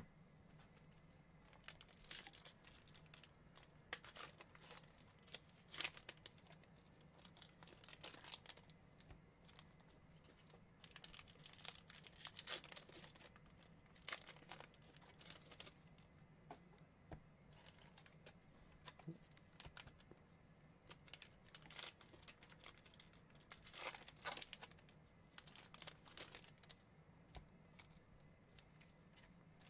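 Foil wrappers of 2021 Bowman baseball card packs being torn open and crinkled, in irregular bursts of crackling, with cards handled between them.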